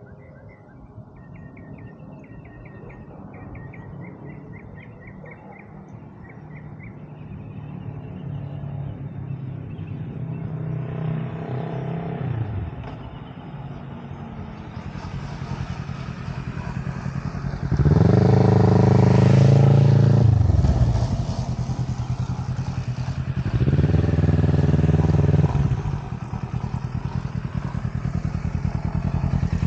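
Kawasaki Z650 parallel-twin with an aftermarket Akrapovič exhaust approaching, its engine note building from faint to loud. The revs ease off about a third of the way in, followed by two loud bursts of throttle, the first about three seconds long and the second about two. Near the end the bike runs close at low revs with a pulsing exhaust note.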